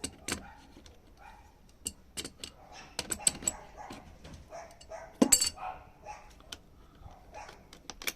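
Metal clicks and clinks of an 11 mm wrench working a nut, irregular and loudest about five seconds in, as it fails to take a proper grip. A dog barks in the background.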